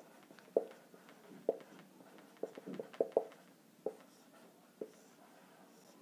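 Marker pen writing on a whiteboard: a string of short, irregular strokes and taps as letters are written and a box is drawn, the loudest cluster about halfway through.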